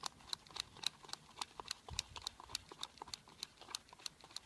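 Worm-chopping scissors snipping rapidly in a pot of worms, cutting them into fine pieces, about four snips a second.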